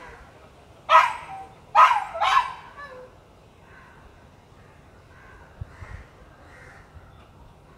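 A dog barking three times in the first few seconds, sharp, loud barks, then only a faint background.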